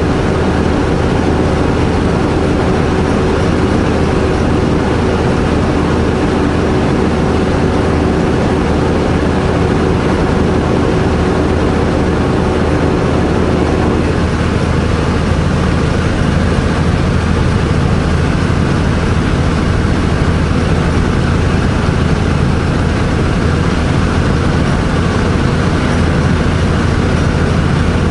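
Semi truck's diesel engine running steadily with road noise, heard inside the cab. A steady higher hum stops about halfway through.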